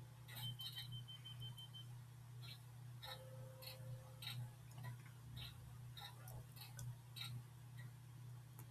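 School bus dashboard during key-on startup checks: a relay ticking steadily a little under twice a second, a quick string of high beeps near the start, and a low warning buzzer for about a second and a half about three seconds in, all faint over a steady low hum.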